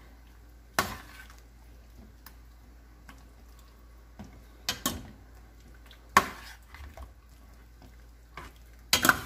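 Metal spoon stirring chicken, gnocchi and potato in a stainless steel pot, knocking sharply against the pot a few times.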